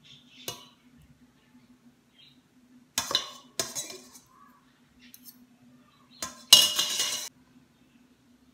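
A metal fork clinking and scraping against a metal cooking pot as stuffing is scooped out: a light tap near the start, two sharp scrapes about three seconds in, and a longer, louder scrape near the end.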